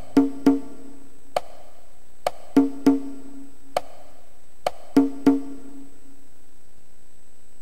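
Closing bars of an instrumental backing track: a sparse percussion figure of sharp wood-block-like clicks and pitched knocks that ring briefly. The figure repeats about every two and a half seconds, a single click, another click, then two knocks in quick succession, and stops a little after five seconds in.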